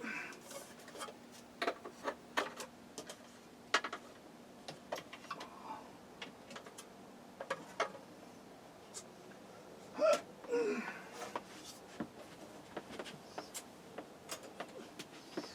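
Scattered clicks and knocks of items being shifted about and set down while rummaging on shed shelves, with a short breathy grunt about ten seconds in.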